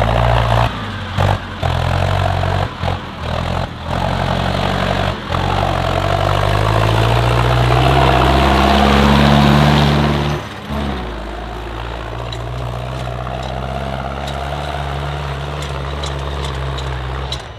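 Racing tractor's diesel engine working hard on a hill climb. The revs climb steadily for several seconds, then drop suddenly about ten seconds in to a steady lower pull. Several brief breaks cut the sound in the first few seconds.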